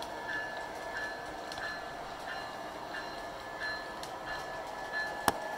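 O scale model passenger train rolling along the track: a steady running noise with regular light clicks about one and a half times a second, and one sharp click near the end.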